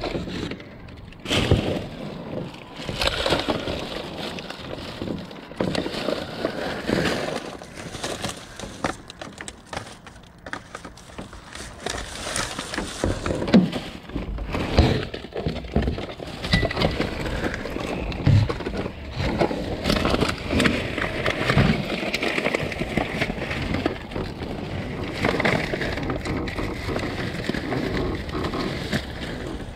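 Rustling and crinkling of plastic garbage bags and packaging being rummaged by hand inside a dumpster, with scattered knocks and clunks as items are shifted and pulled out.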